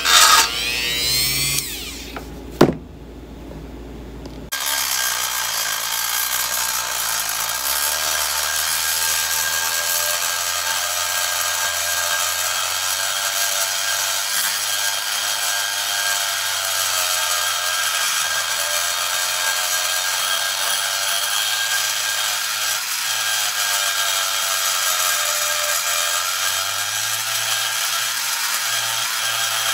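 Handheld rotary grinder with a long-shank burr porting a cast-aluminium GT40 lower intake runner. Early on the motor spins down, and there is one short sharp noise near three seconds. From about four and a half seconds in it runs steadily, its pitch wavering slightly as the burr cuts the metal.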